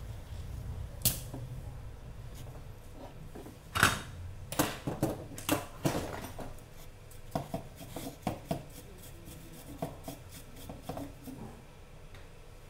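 A spring-loaded desoldering pump snaps with a sharp click about a second in, followed by a run of clicks and knocks as the tools and the projector's power supply board are handled on a hard workbench, loudest between about four and six seconds in.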